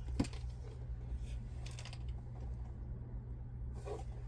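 Faint handling noises from a diamond painting kit's packaging being picked up and handled, a few light clicks and taps, over a steady low hum.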